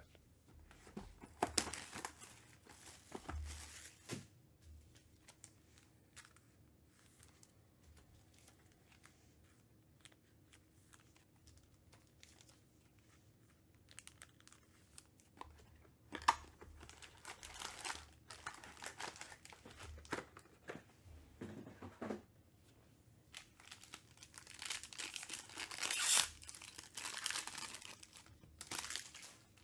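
A foil trading-card pack (2021 Panini Chronicles baseball) being torn open and its wrapper crinkled. The tearing and crinkling come in short spells with a quiet stretch in the first half, and grow denser and loudest in the last few seconds.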